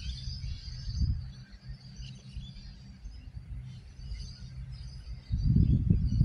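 Faint, steady low hum of a distant approaching 3100 class diesel railcar, with birds chirping. About five seconds in, a loud low rumble sets in.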